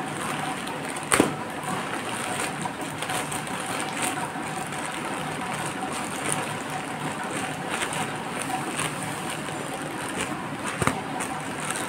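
Plastic courier mailer bag rustling and crinkling as hands tear it open, with sharper crackles about a second in and again near the end.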